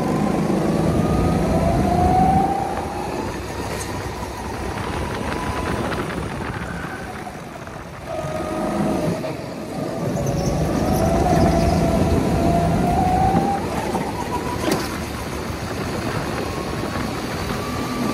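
Petrol go-kart engine running under load, its pitch climbing as the kart accelerates and dropping off when the throttle is lifted, twice over. A single sharp click about fifteen seconds in.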